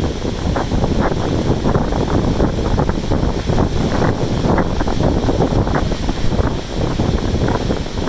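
Strong wind buffeting the microphone in irregular gusts, a loud rough rumble, over the wash of heavy surf breaking on the rocky shore below.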